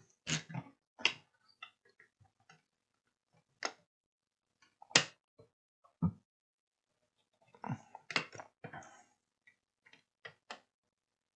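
Irregular clicks and knocks of a small circuit board being handled and clamped into a plastic PCB holder on a workbench, with the sharpest knock about five seconds in.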